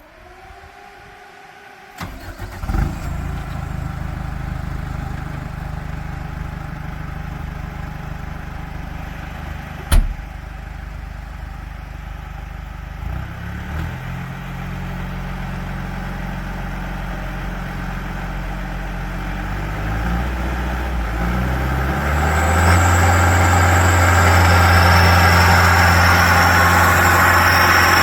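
Rippa NDI680 skid steer's Cummins 2.8-litre diesel engine cranked and starting about two seconds in, then idling, with a single sharp knock around ten seconds. Its engine speed steps up and down, and near the end it is throttled up to a louder, faster steady run.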